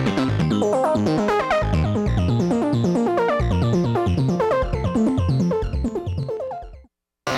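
Sonicware ELZ_1 synthesizer on its 8-bit FM engine, playing a fast sequenced pattern of short chiptune-style notes over a bass line. It fades out near the end into a moment of silence.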